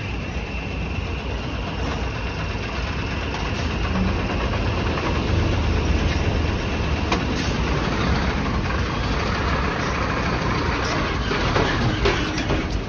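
Diesel engine of a garbage compactor truck running close by, a steady low rumble that grows louder from about four seconds in.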